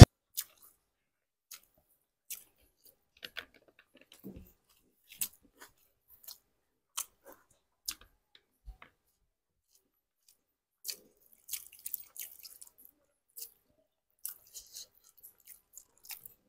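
Faint chewing and mouth smacks of a man eating rice with his fingers, heard as scattered soft clicks.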